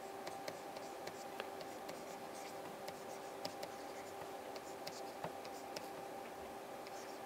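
Faint scratching and light tapping of a stylus writing on a tablet, over a steady low electrical hum.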